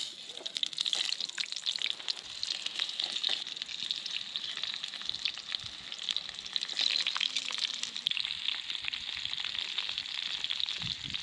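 Food frying in a pan: a dense, steady sizzle full of fine crackles.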